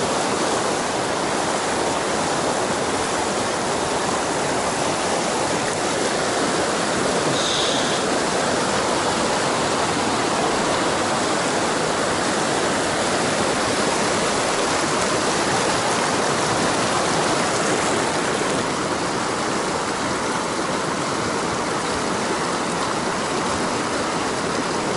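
Mountain stream rushing steadily over rocks in white-water rapids.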